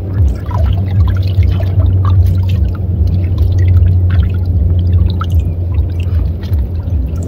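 Hands splashing and sloshing water inside a push net while picking out small fish, with many small irregular splashes and drips, over a steady low hum.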